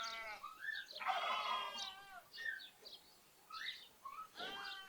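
Lambs bleating three times, the longest and loudest call about a second in, while sparrows and other small birds chirp.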